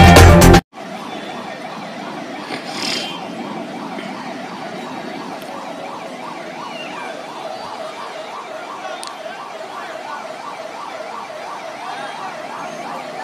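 Ambulance siren wailing in a fast, repeating rise and fall over a steady crowd background. News-intro music cuts off abruptly in the first second.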